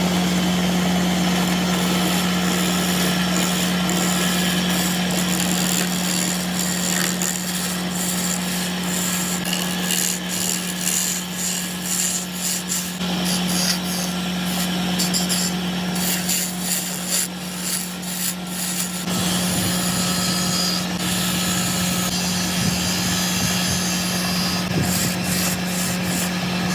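A power tool working wood: a steady motor hum under rough rasping and scraping of the wood, with the grinding growing heavier about two-thirds of the way through.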